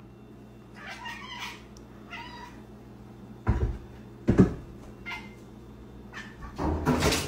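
A cat meowing a few short times, with two heavy thumps in the middle as it jumps down from the top of the fridge onto the counter. A louder noisy clatter starts near the end.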